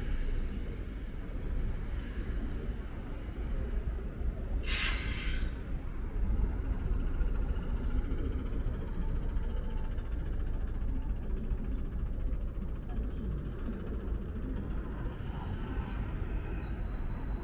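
Hyundai city bus standing at a stop with its engine running, a steady low rumble, and a short burst of compressed-air hiss about five seconds in.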